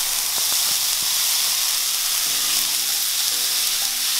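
Ground beef and chopped zucchini, onion and bell pepper sizzling in a hot nonstick frying pan as a steady hiss, stirred with a spatula.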